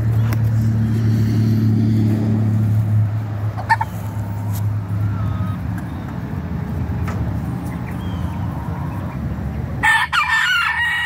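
Rooster crowing, starting about ten seconds in, over a low steady hum that fades out about halfway through.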